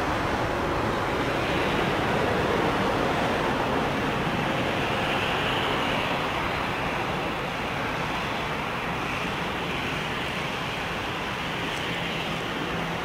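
Airbus A321 jet engines at taxi power as the airliner lines up on the runway: a steady rushing jet noise, a little louder for the first few seconds, then easing slightly.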